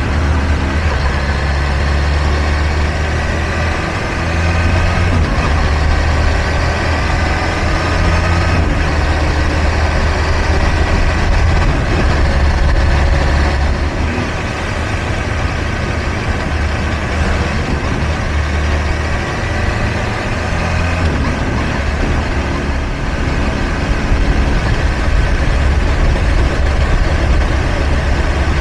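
Kawasaki Ninja H2 SX's supercharged inline-four engine running while the motorcycle cruises, its note rising and falling a little, over steady wind rush.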